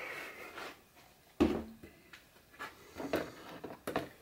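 A few soft knocks and clicks of supplement bottles being handled on a counter: one duller thump, then several sharper clicks.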